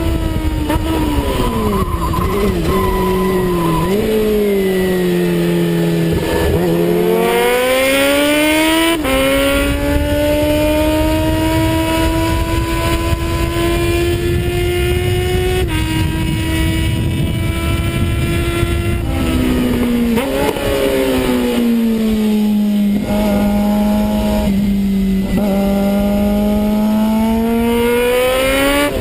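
Suzuki Bandit 650 S inline-four engine heard from on board at track pace. The revs climb through the gears, hold high at speed, then drop with quick blips as it slows and shifts down about two-thirds of the way in. The engine pulls up again near the end, over steady wind rush.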